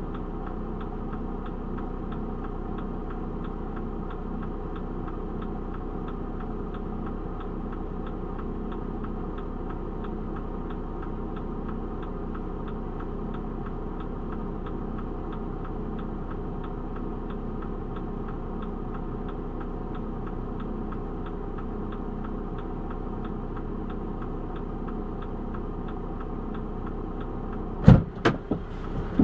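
Delivery van's engine idling steadily, heard from inside the cab, with a faint regular ticking over it. About 28 seconds in come two sharp, loud knocks.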